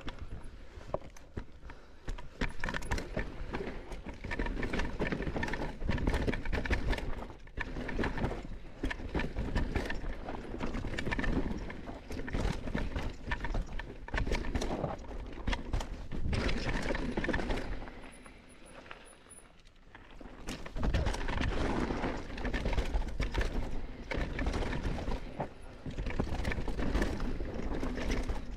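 Mountain bike ridden down a rough dirt trail: tyres rolling over dirt and roots with constant rattling and clattering of the bike over bumps, with a heavy low rumble. It eases off briefly about two-thirds of the way through, then picks up again.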